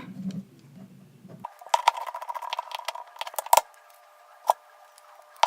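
Small ticks and clicks of a precision screwdriver driving the pentalobe screws back into an iPhone, over a faint steady hum; two sharper single clicks come near the middle.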